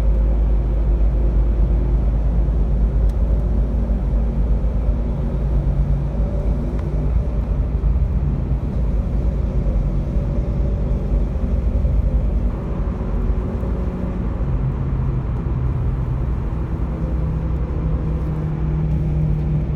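Volkswagen engine running with a misfire while the car is driven, over a heavy low rumble of road noise, its pitch shifting a little now and then.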